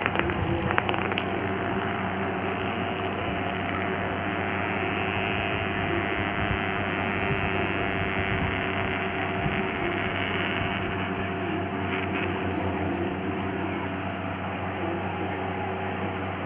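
Lattu (spinning top) spinning on a marble floor, with a few knocks in the first second as it is thrown and lands, then a steady whirr over a constant background hum.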